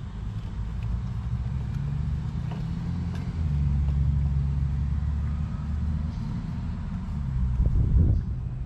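A motor vehicle's engine rumbling in the background, growing louder a few seconds in and easing off later. There is a short louder knock near the end.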